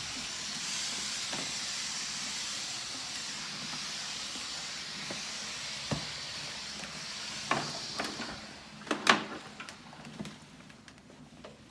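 Shark corded vacuum cleaner running with a steady hiss that dies away about eight or nine seconds in, with several sharp clicks and knocks of handling around it.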